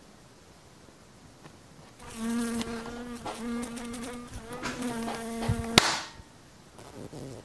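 A housefly buzzing in a few spurts with a slightly wavering pitch, cut off by one sharp hand slap as it is swatted between two palms.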